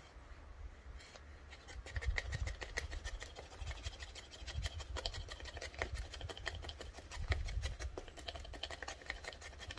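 Cold Steel Finn Hawk knife blade shaving a stick of split firewood into feather-stick curls: quick, repeated scraping strokes of steel along the wood, several a second, starting about a second and a half in.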